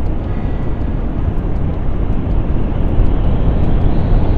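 Steady wind rush over the microphone with road noise, from riding a motorcycle at highway speed, around 80 km/h.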